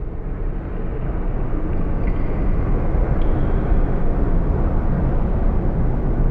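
Steady low rumble of outdoor street ambience, like distant traffic, swelling slightly over the first few seconds.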